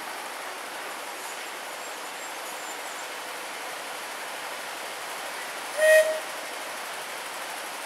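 Miniature railway locomotive's whistle giving one short toot about six seconds in, over a steady hiss.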